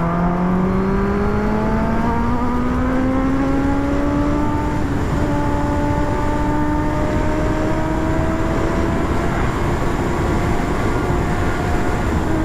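Kawasaki ZX-10R's inline-four engine pulling hard under throttle: its pitch climbs steadily for about four seconds, then holds high and nearly level at speed. Wind noise runs underneath.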